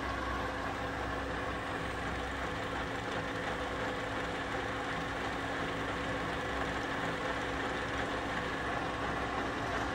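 WMW BS 40 AI column drill's motor and geared head running steadily with the spindle turning free at 355 rpm, no cutting: an even hum with several held tones.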